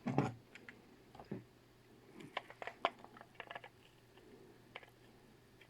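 Faint handling noise: a soft thump just after the start, then a quick scatter of small clicks and taps in the middle.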